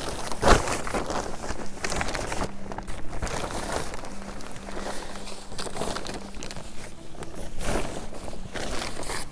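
Plastic tarp rustling and crinkling, with irregular crackles throughout and a sharper, louder crackle about half a second in.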